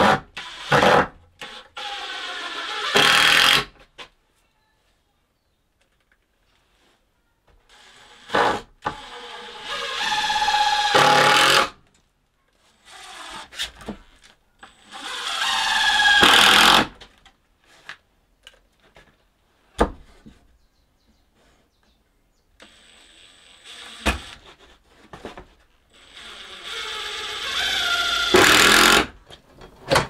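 A power tool running in several bursts of a few seconds each, every burst building up and then cutting off sharply, with quiet gaps between.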